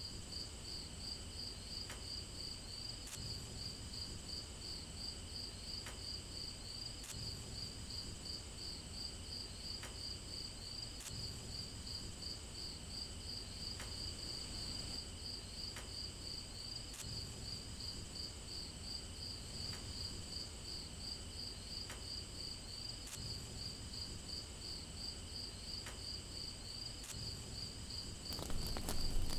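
Crickets chirping in a steady, rapid pulse, about four chirps a second, with a faint tick every couple of seconds. Near the end a louder, lower sound comes in.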